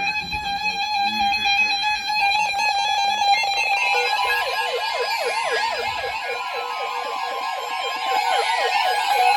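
Weather radio alarms going off. From about four seconds in, a siren-like alert tone warbles up and down a few times a second over a steady high tone, after a few seconds of steady held tones.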